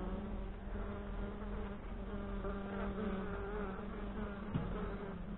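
Honeybees buzzing in large numbers around an opened, crowded hive: a steady hum whose pitch wavers slightly.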